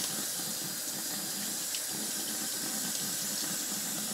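Kitchen faucet running in a steady stream into the sink, the water splashing over a slotted turner as it is scrubbed with a sponge under the tap.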